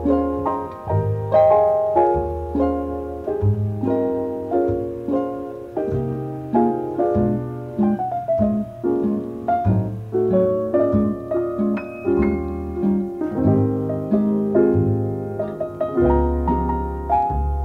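Jazz piano trio recording: piano chords and melody over a plucked double bass line.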